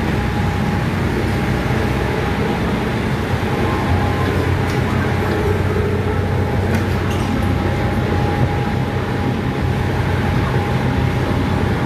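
Boat engine running steadily, a constant low drone under a steady rushing noise.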